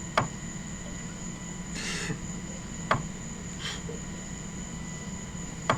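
Three sharp clicks about two and a half seconds apart, with brief hisses between them, over a steady electrical hum and faint high whine.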